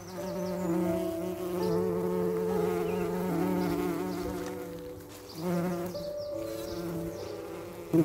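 Honeybees buzzing: several overlapping hums that waver and shift in pitch as bees fly about, dipping briefly and swelling again about five seconds in.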